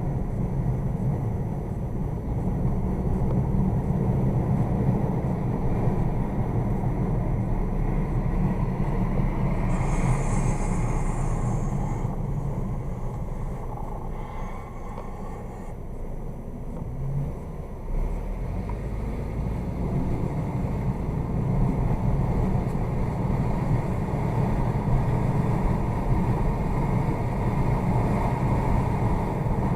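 A car driving, with a steady low rumble of engine and road noise. It eases off for a few seconds around the middle, then rises again.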